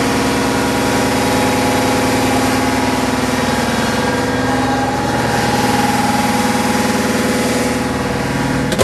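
Natural gas compressor unit running inside its enclosure: a loud, steady machine drone made of many held tones. A single sharp click comes near the end.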